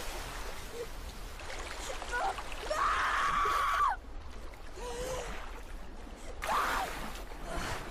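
Film soundtrack of a tsunami scene: a boy shouting out in long, distressed calls over the steady rush of floodwater. One call is held for about a second just before the middle, and a second, shorter one comes near the end.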